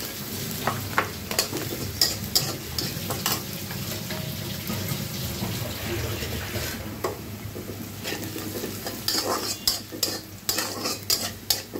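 Sliced onions sizzling in hot oil in a blackened iron karahi while they are browned, with a steel spatula stirring and scraping against the pan. The spatula's scrapes and clinks come often, most densely near the end.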